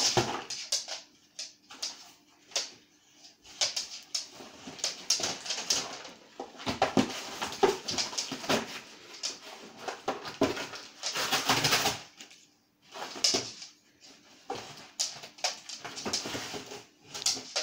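Dog tearing at and shoving a cardboard box: irregular bursts of cardboard ripping, rustling and scraping on the floor, with short gaps between. The longest and loudest rip comes a little past the middle.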